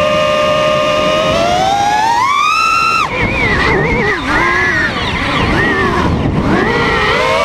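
FPV quadcopter's brushless motors and propellers whining. The whine holds a steady pitch, climbs smoothly as the throttle goes up, then swoops rapidly up and down with sharp throttle changes for the last few seconds.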